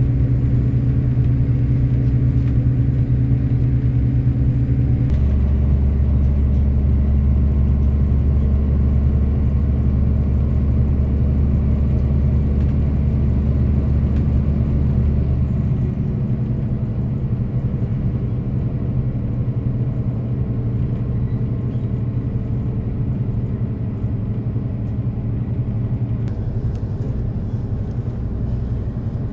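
Diesel regional train running, heard from inside the carriage: a steady engine drone under the rolling noise. The drone shifts to a new pitch about five seconds in and eases down about halfway through, like a gear change and then the train coasting.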